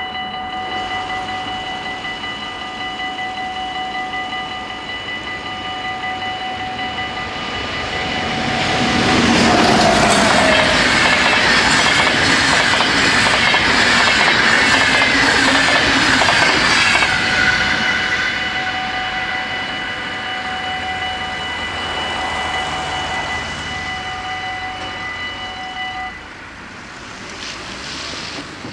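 Level-crossing warning bells ringing steadily while a train passes about eight seconds in, its wheels clattering rhythmically over the rail joints for about nine seconds. The bells stop near the end as the crossing clears.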